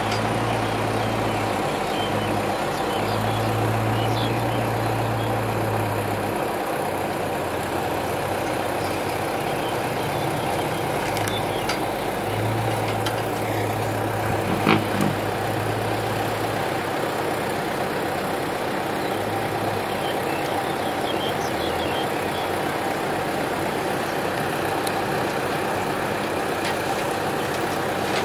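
Diesel engine of a six-wheel dump truck running steadily as the truck moves down into a dug pit, with one short knock about halfway through.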